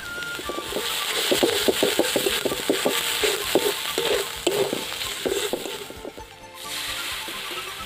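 Metal spatula scraping and stirring onions, chillies, spice masala and small fish frying in a wok, with a steady sizzle. The sizzle dips briefly about six seconds in, then comes back.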